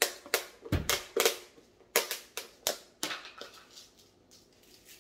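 Sliced bitter melon crunching and clicking as it is squeezed and rubbed with salt by hand, a step that draws out its bitterness. About a dozen sharp crunches come quickly in the first three seconds or so, growing fainter, then stop.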